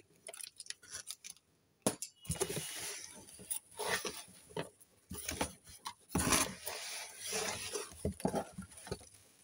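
A cardboard shipping box being opened by hand: a box cutter slitting the packing tape at first, then irregular rustling and scraping of the cardboard flaps and the papers inside, with a brief pause about a second in.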